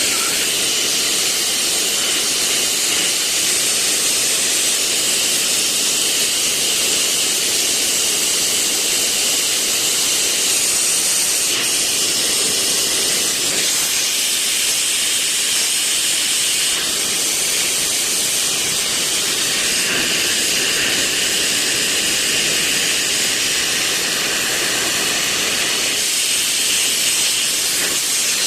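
Gas torch flame hissing steadily, as used for heating and shaping glass.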